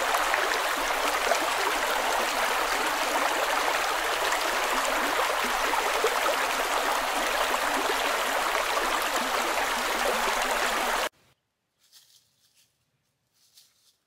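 Shallow creek running over stones and sticks, a steady rush of water that cuts off abruptly about eleven seconds in. Near silence follows, with two faint brief sounds.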